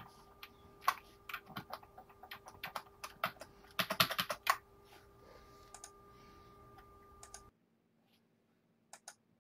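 Computer keyboard and mouse clicking: scattered key and button clicks, with a quick run of keystrokes about four seconds in. A faint steady hum sits underneath and cuts off suddenly about seven and a half seconds in, and two more clicks come near the end.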